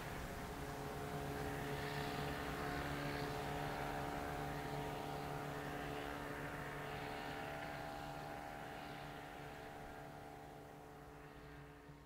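A steady engine drone, a low hum with several held tones over a background rush, fading out over the last few seconds.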